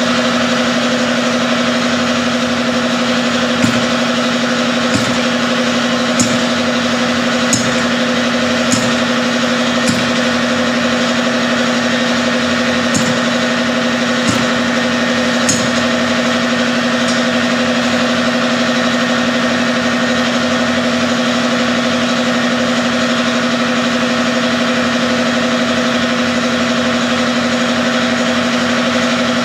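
An engine running steadily with a constant hum. Sharp clicks come at irregular intervals of about a second or so between roughly 4 and 17 seconds in.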